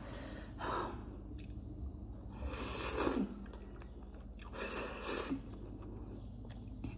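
A person slurping noodles off a fork and chewing, with two long slurps in the middle of the stretch.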